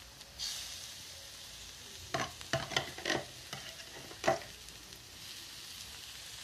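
Chopped onions, greens and spices sizzling steadily in a stainless steel frying pan over low heat. A spoon clinks and knocks several times about two to three seconds in, and once more sharply just after four, as tomato paste is spooned into the pan.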